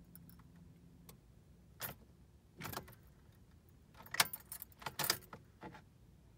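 Car keys jangling and the ignition key clicking as it is turned in a 2013 Honda Accord's ignition: short clatters about two and three seconds in, then a busier cluster from about four to six seconds. The starter motor does not crank, the sign of a failing starter. A faint low hum stops about a second in.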